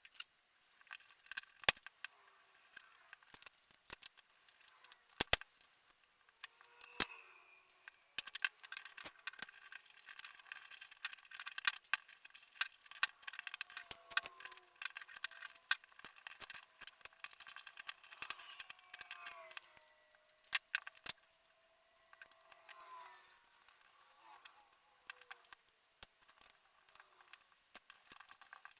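Small hardware being handled by hand: bolts, nylock nuts and bearings clicking and clinking against each other and against 3D-printed plastic parts in irregular quick taps. A few sharper knocks stand out, along with a few faint squeaks.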